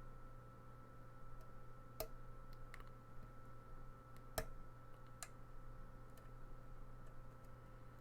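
Faint clicks from a lock pick and tension wrench working the pins of the Sinister challenge lock by Albert Lebel while it sits in a false set. The two sharpest clicks come about two seconds and four and a half seconds in, with a few lighter ones, over a steady faint hum.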